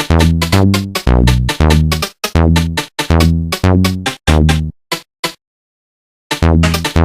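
Electronic mobile-phone ringtone: a looping drum-machine-backed tune of short, punchy, bass-heavy notes. The phrase breaks off for about a second and a half, with a couple of faint clicks, and then starts over near the end.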